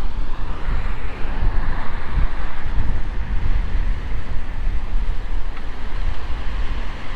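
Wind buffeting the microphone with a loud, fluttering rumble, over the hiss of steady traffic passing on a busy road.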